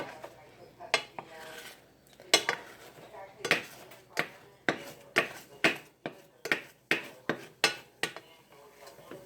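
A spoon knocking and scraping against a pan while scrambled eggs are stirred, in a run of sharp clinks about two a second. A single sharp clink comes at the very start.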